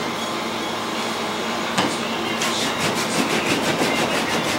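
Hand rubbing along an elk antler's beam in quick, even back-and-forth strokes, about six a second from about halfway in, while thinning out the antler's colour. A single knock comes just before the strokes begin.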